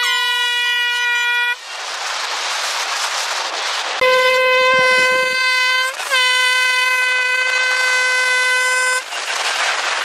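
Handheld canned air horn sounding three blasts, each a single steady note. The first is short, at the very start. The second comes about four seconds in and the third right after it, lasting about three seconds. Wind and road noise from the moving car's open window rush between the blasts.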